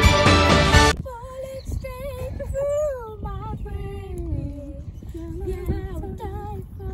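Background music that cuts off abruptly about a second in, followed by a girl singing a melody on her own, without accompaniment.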